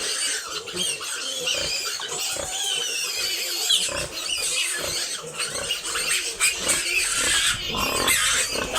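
A litter of piglets squealing continuously, many high, wavering cries overlapping. The piglets are crying from hunger.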